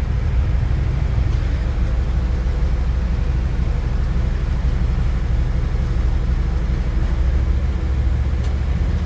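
Riding lawn mower engine running steadily in reverse, a low even rumble with a faint steady hum above it; the mower is barely moving because the brake, not the gas pedal, is being pressed.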